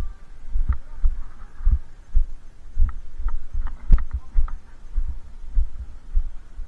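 Dull low thumps repeating about twice a second, as a camera carried by someone walking jolts with each step. A few faint clicks come about halfway through, one sharper than the rest.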